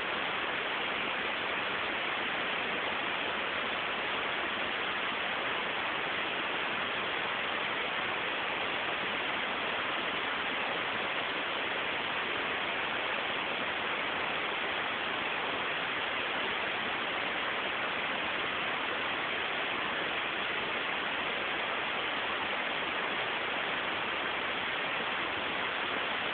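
Steady, even static hiss with nothing else standing out.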